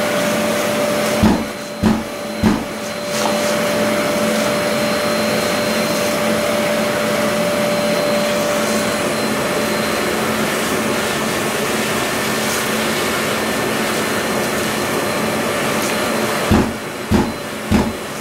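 Bosch GAS 35 L AFC dust extractor running with a steady whine. Twice, about 15 seconds apart, a burst of three sharp thumps comes from the automatic filter cleaning knocking dust off the filter.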